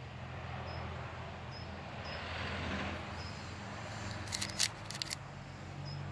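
Handling noise from hands working a small paintbrush and a plastic pollen packet: a soft rustle around two to three seconds in, then a short run of crisp clicks a little after four seconds, over a steady low hum.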